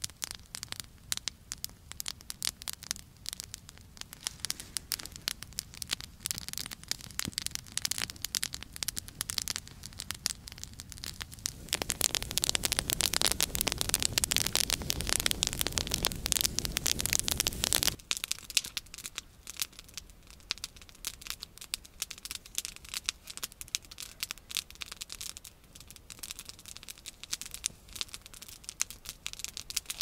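Campfire crackling and popping with many sharp little cracks. About twelve seconds in, a louder rushing noise comes in over it for about six seconds and cuts off abruptly.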